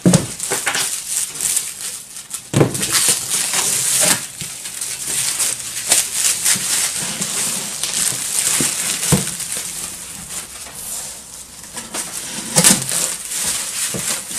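Plastic wrap crinkling and rustling as sheets of laser-cut melamine parts are unwrapped and lifted out of a cardboard box, with a few sharp knocks of the panels against the box.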